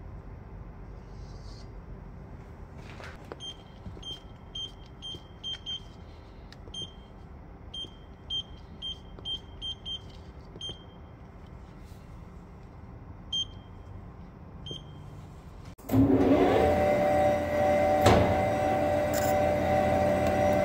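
Short high electronic beeps at irregular intervals over a low hum, like buttons being pressed on a control panel. About 16 seconds in, a much louder steady machine whine with several held tones starts abruptly and is the loudest sound.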